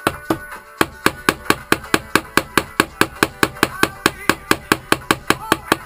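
A small hammer striking a steel wire pin held in pliers against a bench vise's anvil, peening the wire's end over into a rivet head. Quick, even blows, about four a second, with a short pause just after the start.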